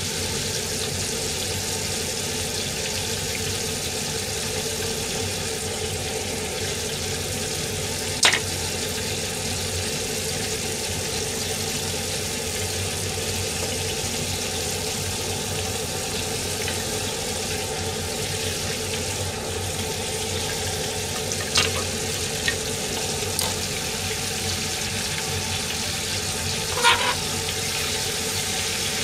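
Steady sizzling of hot cooking oil in pans on a gas stove, with a few sharp clinks of chopsticks and utensils against the metal pans.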